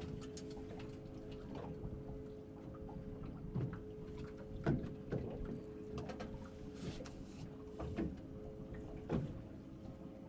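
Faint steady hum with scattered light knocks and clicks as fishing tackle is handled aboard a boat.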